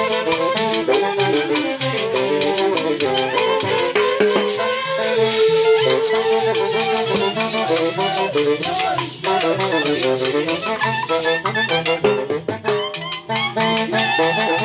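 A Peruvian orquesta típica playing: saxophones, clarinet and trumpets carry the melody together over timbales, cymbal and a steady metal shaker. The shaker's fast strokes drop out about two-thirds of the way through while the horns play on.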